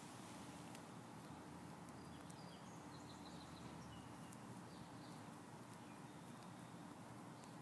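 Near silence: faint outdoor quiet with a few faint, high bird chirps in the middle.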